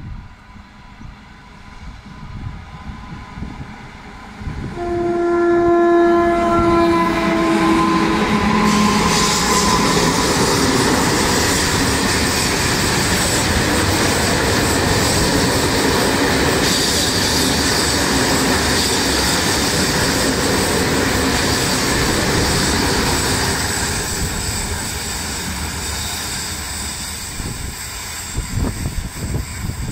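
A pair of Renfe class 269 electric locomotives sound their horn for about three seconds as they approach, followed by a shorter, lower note. They then pass hauling a loaded steel-coil freight train: a long steady rumble and rattle of wheels and wagons that fades over the last few seconds.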